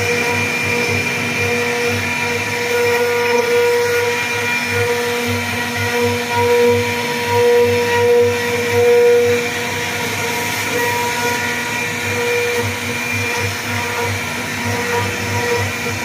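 CNC wood router's spindle running steadily with a high, even whine, over an uneven low rumble.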